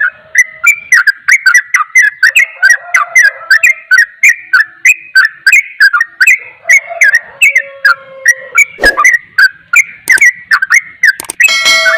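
Yellow-vented bulbul (trucukan) singing a fast, unbroken run of short, sharp whistled notes, about three or four a second: the rapid 'ropel' song. There is a single knock about nine seconds in.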